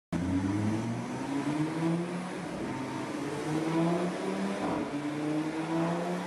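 Audi RS3's turbocharged 2.5-litre five-cylinder engine under load on a dyno run, its pitch climbing steadily, then dropping back and climbing again a few times as it shifts up through the gears.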